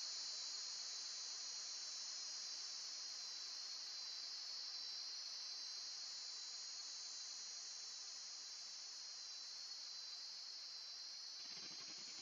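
High-pitched electronic tones, several at once, gliding slowly up and down over a few seconds each and crossing one another, over a faint steady hiss.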